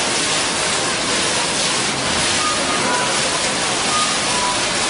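Digital water-curtain fountain: a steady rush of water drops falling in a sheet from a row of nozzles and splashing into the trough below.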